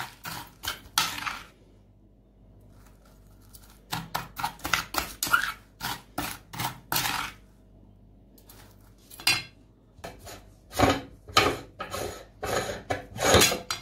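Metal spoon scraping and stirring through crushed, crumbly powder on a glass plate, in bursts of quick strokes with short pauses between.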